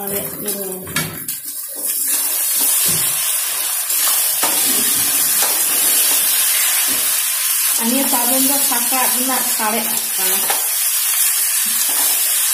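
Polao rice frying in a steel kadai, stirred and tossed with a metal spatula: a few knocks of the spatula on the pan, then a loud, steady sizzle from about two seconds in.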